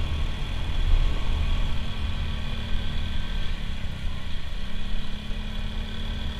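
Motorcycle engine running steadily while riding along, under a heavy low rumble.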